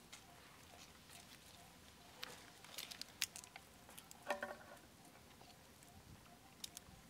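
Soft scattered clicks and rustles of macaques handling food on the ground. About four seconds in comes one brief squeak from the baby macaque.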